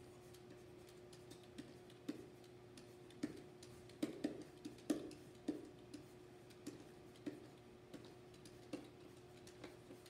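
Pen tip tapping and clicking on an interactive whiteboard as words are handwritten on it: irregular sharp ticks, bunched together about four to five seconds in, over a steady low hum.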